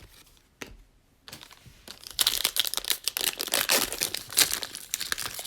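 A few faint clicks, then a plastic trading-card pack wrapper being torn open and crinkled, starting about a second in and getting much louder about two seconds in.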